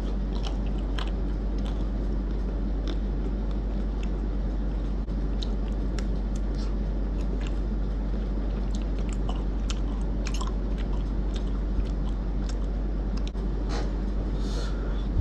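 Close-up biting and chewing of a Magnum cookies and cream ice cream bar, its white-chocolate shell with cookie pieces cracking in many small, irregular crunches, over a steady low hum.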